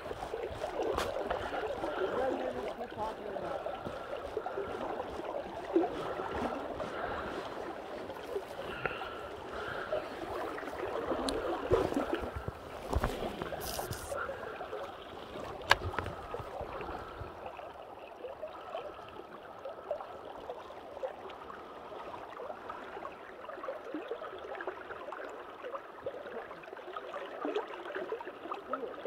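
River water gurgling and lapping against a drifting boat, with a few sharp knocks.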